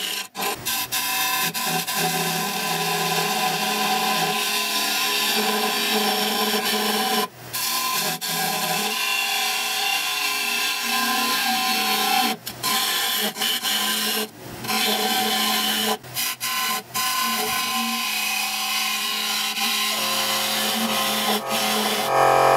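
Turning tool cutting the inside of a wooden bowl spinning on a lathe: a continuous scraping hiss of shavings peeling off the wood, broken by a few brief gaps where the tool leaves the surface.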